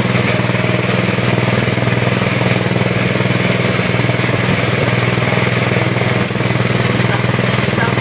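Motor-driven fish meat grinder running steadily under load, a constant low hum, as fish is pushed through its mincing screw and die.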